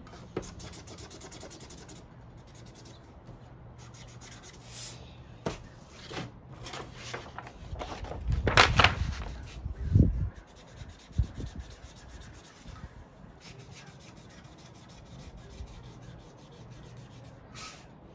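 Felt-tip marker scribbling on paper: a steady scratchy rubbing made of many quick short strokes. About halfway through there is a louder rustle and a couple of thumps as the sheet is shifted on the wooden table.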